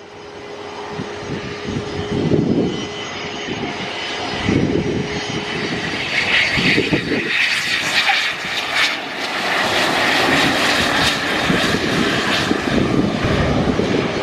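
Twin turbofans of a Cessna Citation business jet landing and rolling out: a steady jet whine that grows louder and is strongest from about halfway through.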